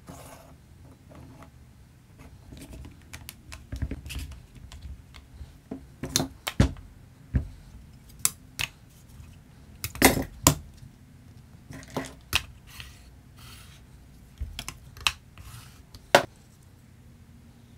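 Irregular clicks and clacks of hand tools on a workbench: Irwin one-handed bar clamps being squeezed tight on a wooden box and a metal combination square being handled and set down.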